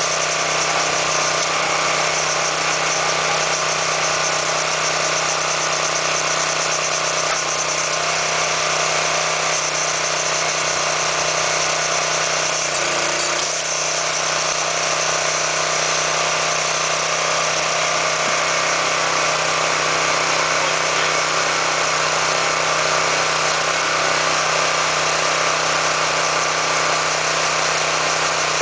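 Small gasoline engine of a Gripo 260GX vertical hydraulic log splitter running at a steady speed, driving the splitter's hydraulic pump.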